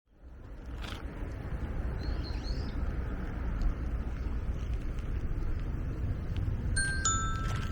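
Outdoor ambience with a steady low rumble, typical of wind on the microphone. A faint bird chirp comes about two seconds in, and a short, high, level-pitched call comes near the end.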